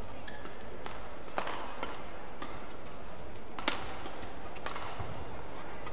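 Badminton rackets striking a shuttlecock in a fast doubles rally: a series of sharp, short hits about a second apart, over the steady background of a large sports hall.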